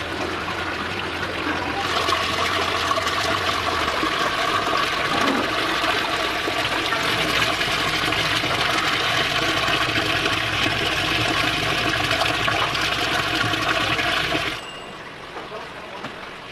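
Water running and splashing into a basin of live mud loaches as they are rinsed. It is a steady rush that grows louder about two seconds in and cuts off suddenly near the end.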